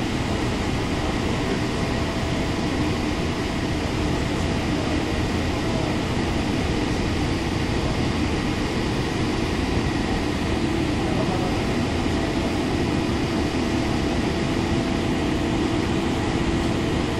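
Running noise inside the cabin of a JR Central 313 series electric train at speed: a steady, even rushing of wheels on rail with a faint low hum underneath.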